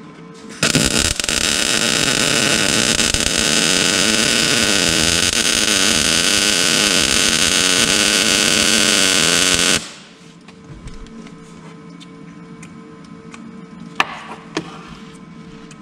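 Arc welding, likely a wire-feed welder laying a bead: a loud, steady hiss starts suddenly about half a second in and cuts off about ten seconds in. A steady hum is heard before and after, with a few sharp clicks near the end.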